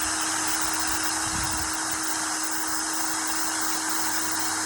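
Small electric power tool running steadily, a constant hum with a high whine, while a hardened steel gib screw is being re-pointed against it.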